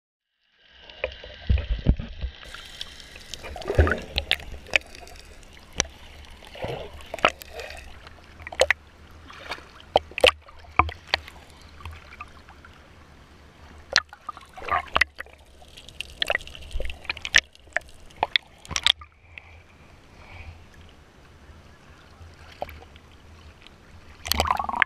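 Sea water sloshing and gurgling around a GoPro action camera at the surface, with many sharp splashes and clicks as the camera is half submerged. It starts suddenly about a second in, after silence.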